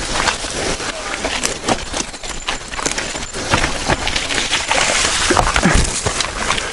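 Mountain bike running fast down a rough dirt trail: tyres rolling over dirt and stones with a dense, uneven clatter of knocks and rattles from the bike's chain, frame and suspension.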